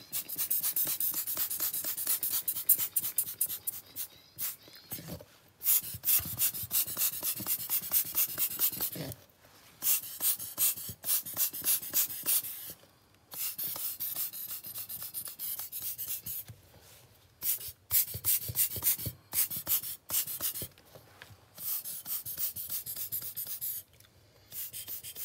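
Quick, repeated puffs of breath blown onto wet alcohol ink to push it across the paper. The puffs come in runs of several a second, broken by short pauses.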